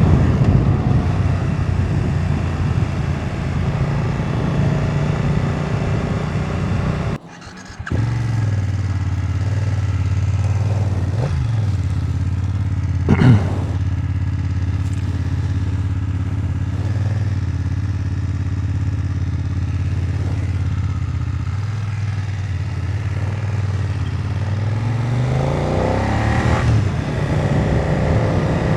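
BMW F900R's parallel-twin engine heard from a rider's helmet microphone on the move. The engine holds a steady cruising note, drops out briefly about seven seconds in, and there is a short sharp blip around the middle. The revs climb near the end.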